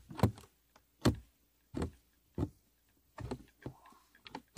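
Hyundai i30's plastic cabin air filter cover knocking and clicking against the filter housing as it is fitted back into place: about six short, separate taps at uneven spacing.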